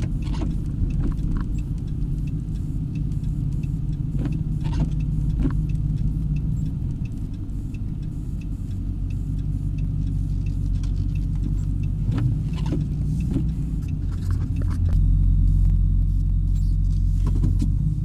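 Vehicle engine and tyre rumble heard from inside the cab while driving on snow-covered streets, with scattered light rattles and clicks. The low rumble grows heavier about fifteen seconds in.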